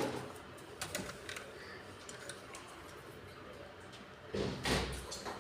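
Plastic toner cartridge being worked into a colour laser printer: a few small plastic clicks about a second in, then a louder scraping slide near the end.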